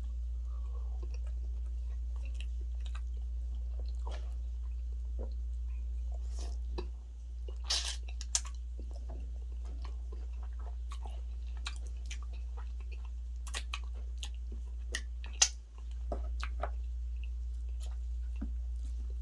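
Close-up eating sounds: chewing and biting of fufu and spicy turkey stew, a string of short wet mouth clicks and smacks, with a few louder snaps about eight seconds in and again near fifteen seconds. A steady low hum runs underneath.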